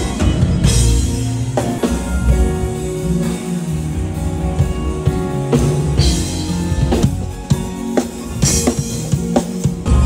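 Live band playing together at a sound check: drum kit with frequent hits and several crashes, electric guitar and keyboard.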